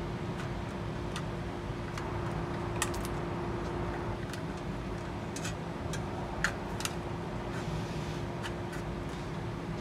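Scattered light metallic clicks of a screwdriver and wires being worked at the screw terminals of a temperature controller's socket, the sharpest about three seconds in and twice more near 6.5 and 7 seconds. Under them runs a steady background hum with one held tone.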